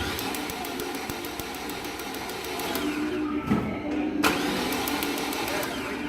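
Starter cranking the 2006 Saab 9-3 Turbo's four-cylinder engine with fuel and ignition disabled for a compression test: a steady whirr with rapid regular clicking, and a sharp knock at the start and again partway through. The cylinder being tested reads zero compression, which the mechanic takes for internal engine trouble, possibly timing.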